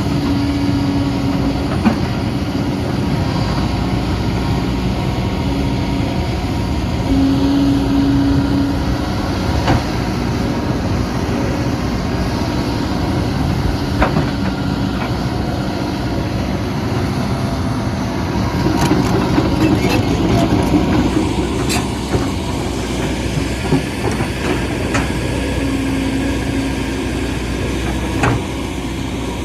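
Excavator engine running steadily at work, with a few short metallic clanks and knocks.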